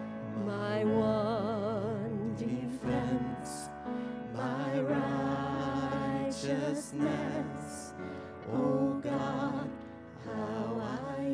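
Two women singing a slow worship song with vibrato, in sustained phrases, over piano accompaniment.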